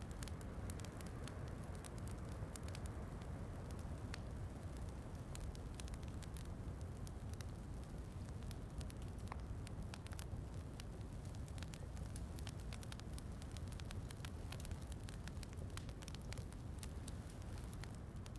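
Wood fire crackling in a fireplace: many small sharp pops and snaps over a steady low rush of noise.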